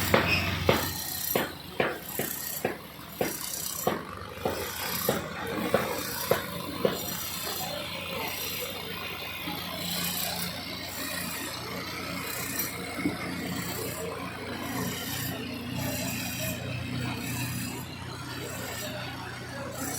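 Construction work: a run of sharp knocks roughly twice a second for the first seven seconds, then steady scraping and grinding over a low machine hum.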